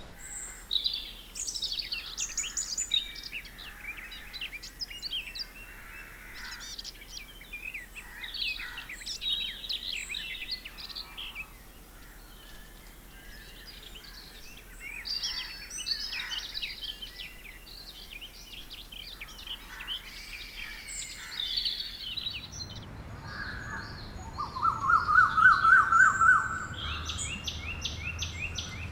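Several songbirds chirping and calling with short, high notes. About 22 s in, the recording changes and a low rumble comes in underneath. Over this, a loud, fast trill of repeated lower notes lasts about three seconds and is followed by a quick run of high chirps.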